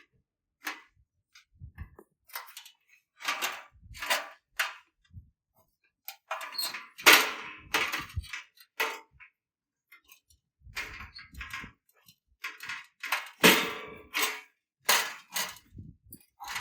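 Irregular handling noises: a string of short knocks, clunks and scraping rustles with silent gaps between them, the busiest stretch in the second half.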